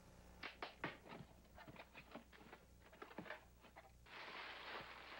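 Faint, irregular clicks and taps for a few seconds, then a soft steady hiss from about four seconds in.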